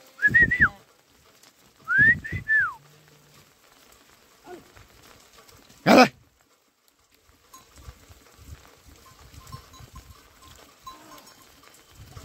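Goats calling: short, high calls that arch up and back down in pitch, once near the start and twice more about two seconds in. A single short, sharp burst of noise comes about six seconds in, then only faint shuffling and movement.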